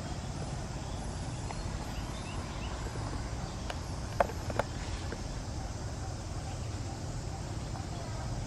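Steady low outdoor background rumble, with faint short chirps in the first few seconds and two sharp clicks less than half a second apart a little past the middle.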